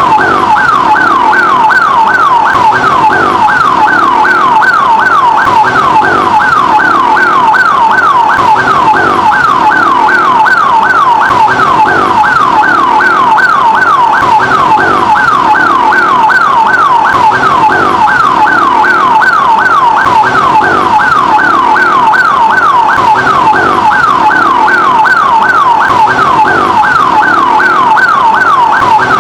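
Ambulance siren wailing in a fast yelp, its pitch sweeping up and down a few times a second without a break.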